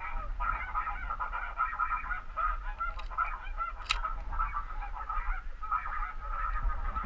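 A large flock of snow geese calling, a constant chatter of many overlapping high honks. A sharp click sounds about four seconds in.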